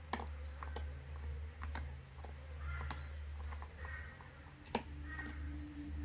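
Belgian Shepherd (Groenendael) gnawing a raw meaty bone, its teeth giving sharp, irregular cracks and crunches every second or so, the loudest just after the start and about three-quarters of the way through.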